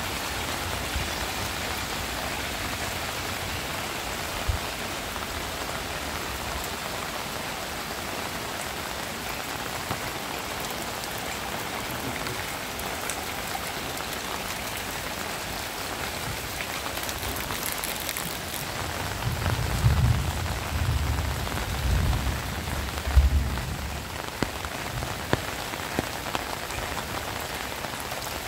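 Heavy rain falling steadily. About two-thirds of the way in, a low rumble with a few loud jolts lasts several seconds.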